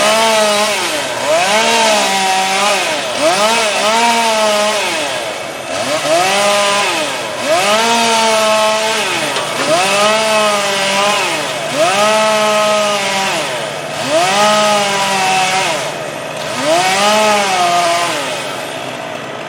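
Two-stroke chainsaw throttled up and down about eight times, each rev rising, holding and falling back over roughly two seconds. A steady lower engine hum joins underneath from about halfway through.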